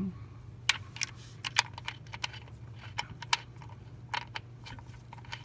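Irregular sharp metallic clicks and taps, about twenty of them, as the oil filter adapter and its centre bolt are handled and threaded in by hand on the engine block's filter mount, over a steady low hum.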